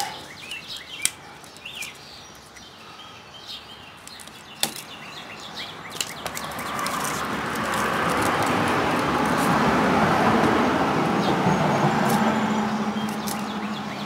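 A vehicle passing by: a smooth rush of noise that swells over several seconds in the second half, then eases off near the end. Before it come a few soft clicks and faint bird chirps.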